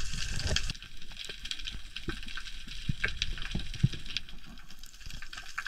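Underwater crackling heard through a camera housing: a dense scatter of irregular clicks and snaps, with soft low thumps of water moving against the housing.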